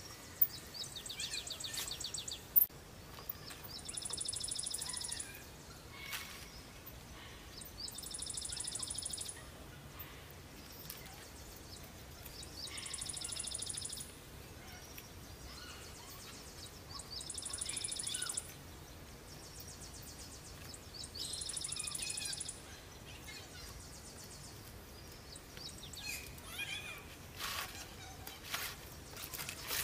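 A songbird singing a short, fast, high trill over and over, about every four seconds. A couple of sharp clicks near the start and some light tapping near the end.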